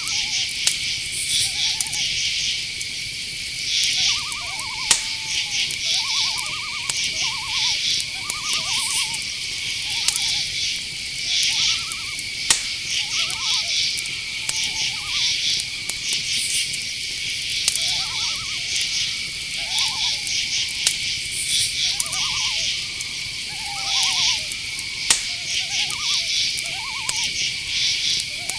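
Night-forest insect chorus: crickets trill steadily, with pulsed chirping above the trill. Short calls that rise and fall in pitch repeat every second or two, and a few sharp clicks stand out.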